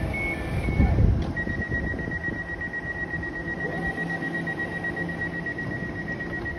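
A train standing at the platform: a steady, rapidly pulsing high-pitched warning beep starts about a second in and carries on, over the train's steady low hum. A short low rumble comes about a second in.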